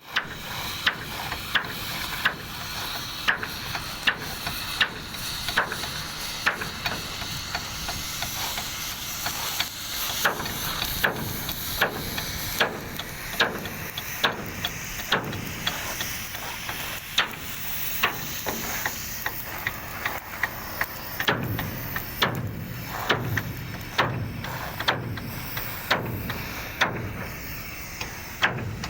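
Hammering on building repair work: sharp strikes, irregular, about one to two a second, over a steady background hiss.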